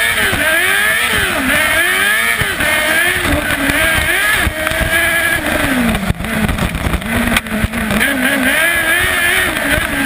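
Kartcross buggy's 600cc Yamaha R6 inline-four motorcycle engine revving hard, its pitch rising and falling again and again as the throttle is worked through the corners. About six seconds in it settles to a lower, steadier pitch, with a few sharp knocks.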